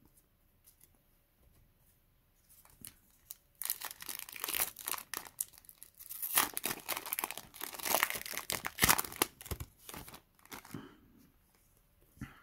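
A Yu-Gi-Oh! booster pack's foil wrapper being torn open and crinkled, a dense crackling rustle that starts about three and a half seconds in and lasts about seven seconds.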